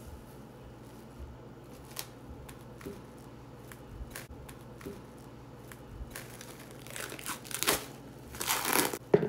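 Plastic cling wrap crinkling as it is stretched and pressed over a glass baking dish. Light scattered crackles build into louder, denser crinkling over the last three seconds, with one sharp crackle near the end.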